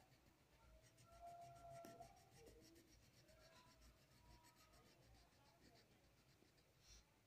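Faint scratching of a felt-tip marker on paper as a hand colours in short strokes. A few faint, brief tones sound in the background.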